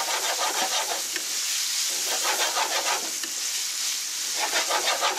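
Chopped bacon sizzling as it fries in a saute pan, turned over with tongs in three spells of scraping and clicking against the pan.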